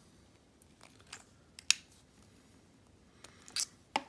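A few small clicks and taps of a thin front-sight driver turning in a pistol slide as the front sight screw is tightened down, with one sharper click nearly two seconds in and a couple more near the end.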